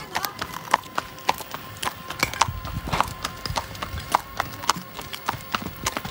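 Hooves of two horses walking on a concrete road: an irregular clip-clop of sharp knocks, several a second.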